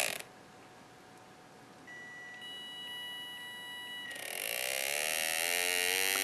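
Small brushed DC hobby motor under PWM control from a DRV8833 H-bridge driver, its windings singing at the switching frequency. The whine cuts off at the start, a faint steady high tone comes in about two seconds in, and from about four seconds in a whine rises in pitch and grows louder as the motor speeds up.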